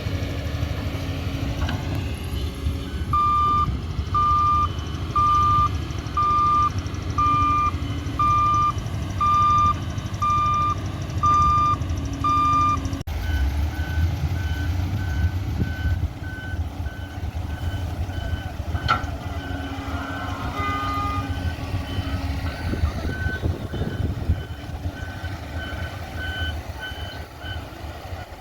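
Heavy diesel engine of earth-moving machinery running, with a back-up alarm beeping about once a second. About 13 s in the sound cuts, and a fainter, higher-pitched alarm then beeps a little faster over the engine.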